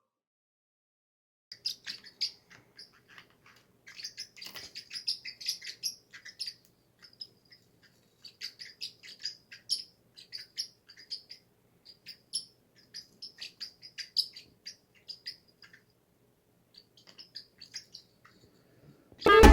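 Pet parrots chirping in quick, irregular runs of short, high chirps with brief pauses between runs. Loud music cuts in abruptly at the very end.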